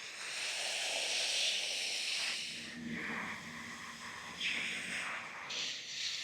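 Water spraying onto garden plants while they are watered: a steady hiss that swells and fades as the spray moves about.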